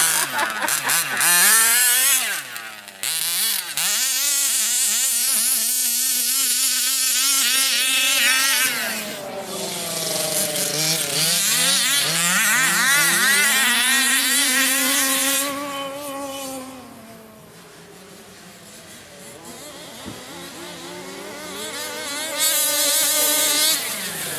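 Small engine of a radio-controlled buggy revving up and down over and over as it is driven, its pitch repeatedly rising and falling. It grows fainter for several seconds past the middle, then louder again near the end.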